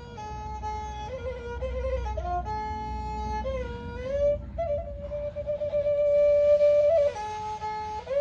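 Thai two-string bowed fiddle (saw) playing a melody, often sounding two notes together, with slides between notes and a long held note in the second half.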